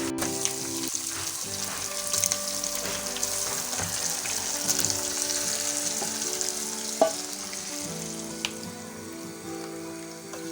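Marinated chicken sizzling in hot soybean oil in the pot, with stirring; the sizzle fades toward the end. A sharp clink of a utensil on the pot about seven seconds in.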